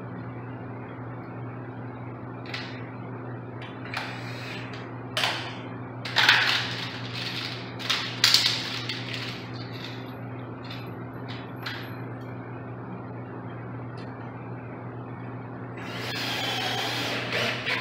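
Short clicks and rattles of a garage door safety-sensor bracket and its parts being handled and fitted, over a steady low hum. Near the end a cordless drill runs for about two seconds at the bracket.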